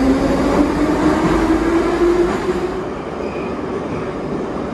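Ride inside an 81-718/719 metro car in motion: a steady rumble and hiss of running gear, with a whine rising in pitch over the first two seconds or so as the train picks up speed, then a lower, steadier run.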